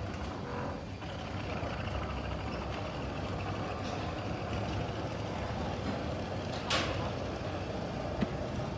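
Steady low vehicle rumble, with one short hiss of air about two-thirds of the way through.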